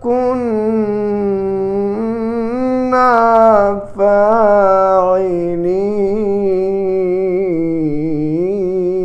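A solo male voice reciting the Quran in a slow, melodic style in maqam Bayat. It draws out long held notes with wavering ornaments and breaks off briefly about four seconds in before it carries on.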